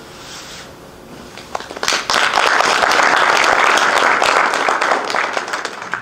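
Audience applause: a room full of people clapping, starting about two seconds in, holding steady and stopping near the end.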